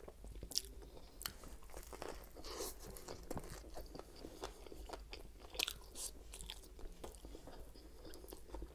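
Close-miked chewing of a breaded chicken sub sandwich: soft, irregular crunching and wet mouth clicks, with a few sharper crunches.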